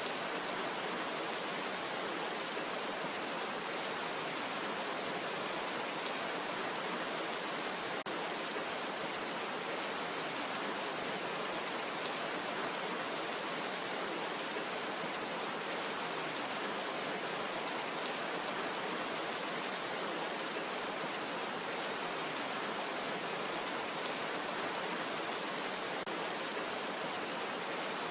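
Steady rain falling, an even hiss that holds the same level throughout, with faint ticks of single drops.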